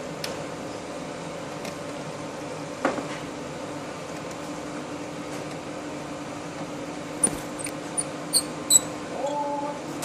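Steady low electrical hum from a large washing machine's open control cabinet, with a single knock about three seconds in and a quick run of sharp metallic clicks near the end.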